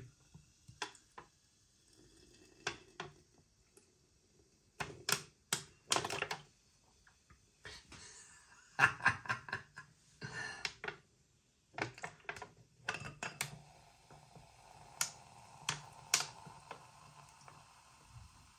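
Aluminium drinks can being squeezed and handled to pour: scattered, irregular clicks and crackles, some coming in quick clusters.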